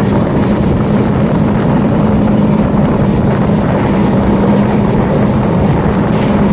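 Train running steadily along the track, heard from on board with wind rushing over the microphone and a constant low hum under the noise.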